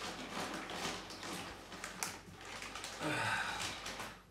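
Clear plastic bag crinkling and rustling against cardboard as a heavy differential is lifted out of its box. About three seconds in comes a short, louder grunt whose pitch falls.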